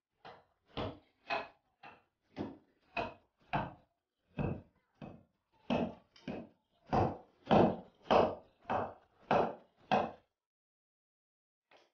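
Repeated heavy blows of a long-handled tool, about seventeen strikes at a steady pace of a little under two a second, loudest around seven to eight seconds in, then stopping about ten seconds in.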